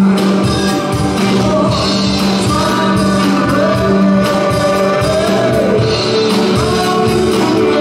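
Live band playing a song, with a sung vocal over a steady drum beat.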